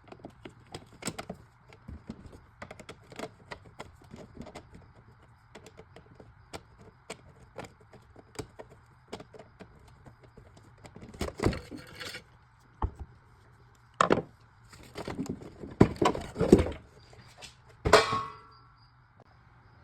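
Hand tools working an engine bolt loose and fitting a ground cable: a long run of small irregular clicks, then several louder knocks and clanks in the second half.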